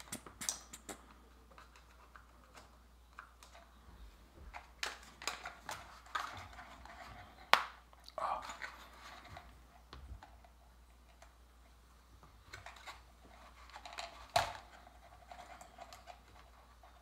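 Scattered clicks, taps and light rustles of small plastic, wooden and foil kit parts and wire connectors being handled on a tabletop, with a sharper click about halfway through and another near the end.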